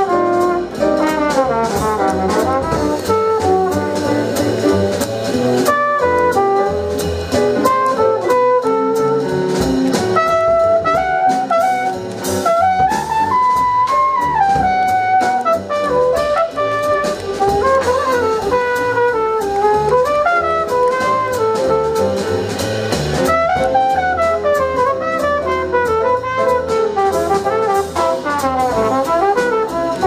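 Live small-group jazz: a trumpet solo of quick phrases running up and down, over double bass and drum kit.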